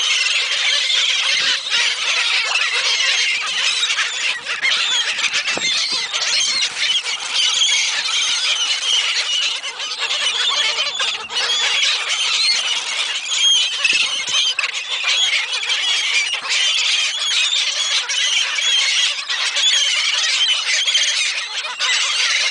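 A flock of seagulls calling at once, loud and unbroken, many high calls overlapping.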